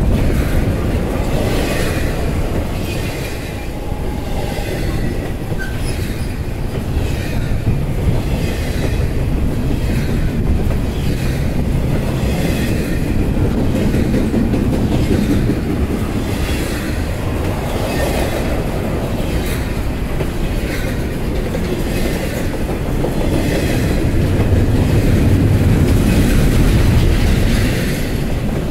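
A train rolling past, its wheels clicking over the rail joints at a steady pace of about one click a second, over a continuous low rumble.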